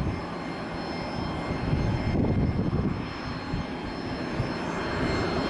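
Jet airliner engines whining steadily, with gusty wind buffeting the microphone; the engine noise grows a little louder near the end.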